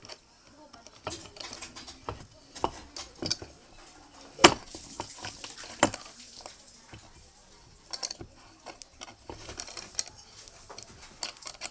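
Scattered small metal clinks and knocks of tools and parts handled during a ceiling fan bearing change, with two sharper knocks about four and a half and six seconds in.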